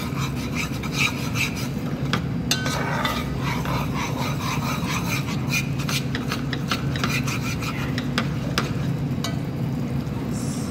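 A metal ladle stirring thick, simmering sweet-and-sour sauce in a nonstick pot, with repeated scrapes and clicks as it rubs the pan, over a steady low hum.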